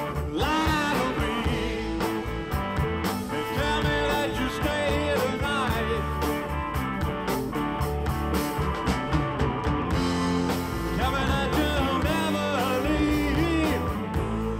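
Live blues-rock band playing with electric guitars and drums, a sung melody over the band.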